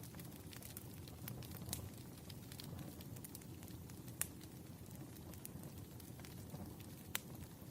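Firewood burning: a low, steady rumble of flames with scattered sharp crackles and pops. The two loudest pops come a little past four seconds and about seven seconds in.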